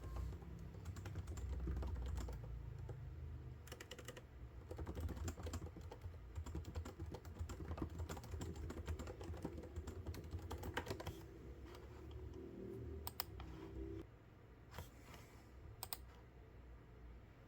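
Typing on a computer keyboard: a quick, busy patter of key presses that thins out to a few separate clicks near the end, over a low hum.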